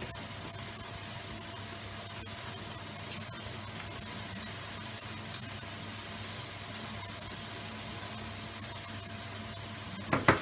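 Chicken pieces frying in oil in a frying pan, a steady sizzle. Near the end a spatula knocks and scrapes against the pan a few times as stirring starts.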